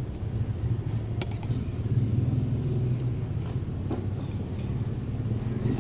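A steady low rumble, with a few light clinks of a spoon and fork against a plate of rice.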